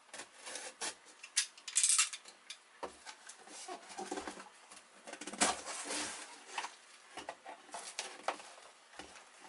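A cardboard shipping box being opened by hand: a utility knife slicing through the packing tape, then cardboard scraping, knocking and rustling as the box is turned over and its flaps opened. A sharper scraping burst comes about two seconds in.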